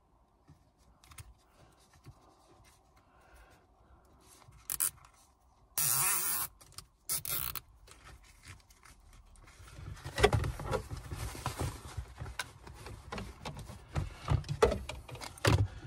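A large plastic zip tie being threaded and pulled tight through its ratchet around the shift boot, with short rasping pulls about five to seven and a half seconds in. Small clicks and plastic handling noise come before it and grow denser over the last several seconds.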